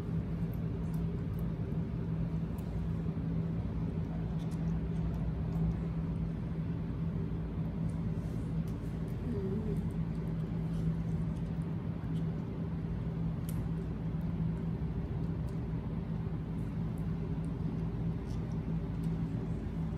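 Steady low hum with a constant tone, over which faint small clicks come and go, of the kind made by small mouths chewing soft fruit.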